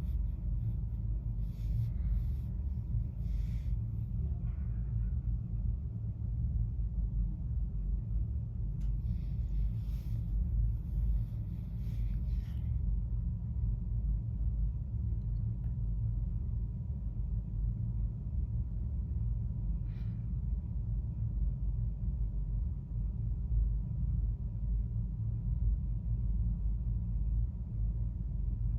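Steady low rumble throughout, with a faint steady high tone and a few faint brief hissy noises in the first half.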